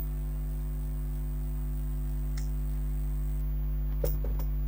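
A steady low hum runs throughout. About four seconds in, a short crackle and knock come from the plastic-wrapped inkjet printer being handled and lifted, with a faint click earlier.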